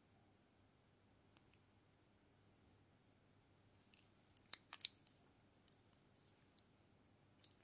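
Faint clicks and taps of gloved fingers handling a wristwatch and its leather strap, with a quick cluster of sharper clicks about four to five seconds in, as the watch case is turned over.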